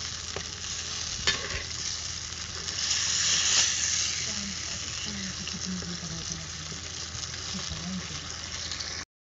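Fish pieces frying in masala in a clay pot, sizzling steadily, while a ladle stirs them with a couple of knocks against the pot about a second in. The sizzle swells around three seconds in, and the sound cuts off abruptly just before the end.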